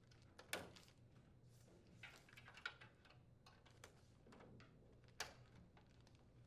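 Faint handling noise of a wire harness and plastic wire connectors being plugged back into a dryer's control board: a few soft clicks and short rustles, the clearest about half a second in and about five seconds in.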